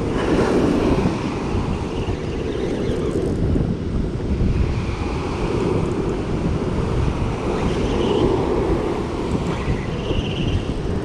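Wind buffeting the microphone over the steady rush of surf breaking on a beach.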